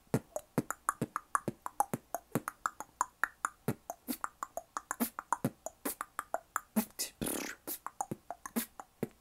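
Human beatboxing: a fast, even run of mouth-made percussive hits, about four to five a second, with one longer breathy hiss a little after seven seconds.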